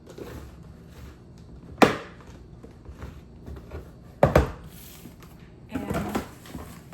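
Hard plastic freezer storage containers knocked and clicked together as they are fitted and stacked: one sharp knock about two seconds in and a quick double knock a little past four seconds.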